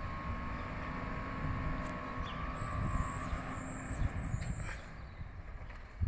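Recycling truck's engine running as the truck drives away up the street: a steady low rumble with a faint whine over it, getting a little quieter near the end.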